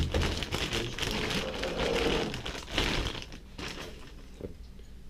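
Clear plastic wrapping crinkling and rustling as chrome BMX forks are pulled out of their bag, after a single knock at the very start; the crinkling is busiest in the first three seconds and thins out near the end.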